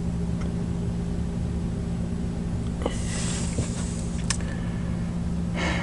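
A steady low electrical hum, with a few light clicks and a short rustle about halfway through and another rustle near the end.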